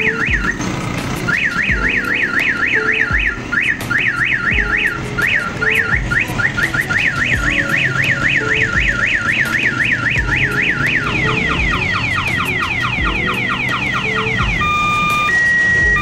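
Mini electronic '1122' ambulance-type siren wired into a motorcycle's horn circuit, switched on and cycling through its tones. First comes a warbling rise-and-fall several times a second, with a few short breaks. From about eleven seconds in it changes to a faster, higher falling yelp, and near the end to a two-tone hi-lo.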